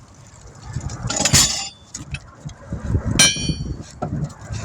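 Metal tire tools and equipment clanking during tire mounting: a short scraping rush about a second in, then one sharp metallic clank that rings briefly about three seconds in.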